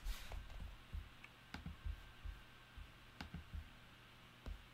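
Faint, irregular clicking of computer keys being typed, with soft thumps among the clicks.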